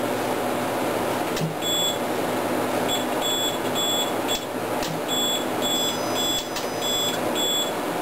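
Battery backup (UPS) alarm beeping, a high electronic beep repeated about twice a second while the unit runs on battery during the outage, over the steady whir of server-room equipment fans. A few sharp clicks break in along the way.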